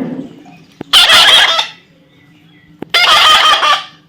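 Parrot screeching: two loud, harsh calls about two seconds apart, each under a second long, with a couple of faint clicks between them.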